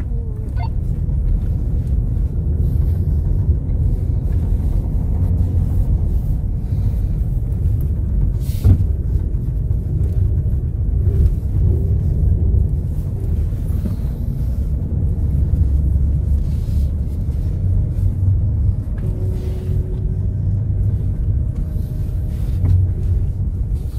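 Off-road vehicle driving slowly along a rough dirt track, heard from inside the cab: a steady low rumble of engine and tyres, with scattered knocks and rattles from the bumps and one sharper knock about nine seconds in.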